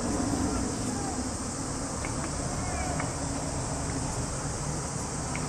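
A steady, high-pitched chorus of summer insects buzzing, over a low rumble, with a few faint short chirps.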